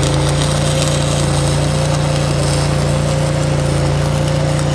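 Stick-welding arc crackling steadily as a rod burns along a steel pipe fence post, over the steady drone of an engine-driven Miller Bobcat welder-generator running under load.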